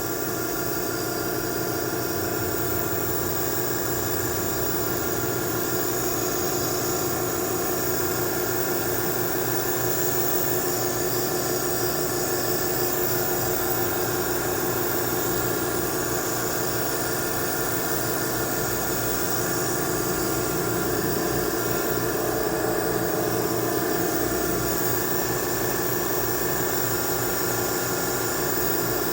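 A steady machine hum with an even hiss over it, unchanging throughout.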